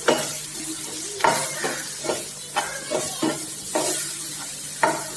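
Spatula stirring and scraping chopped tomato, onions and spice masala around a nonstick frying pan, in a series of irregular scraping strokes over a steady sizzle of frying.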